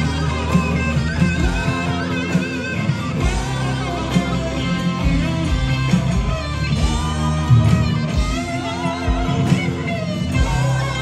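Southern rock band playing live: an electric guitar carries a melodic line of bent, wavering notes over bass and drums.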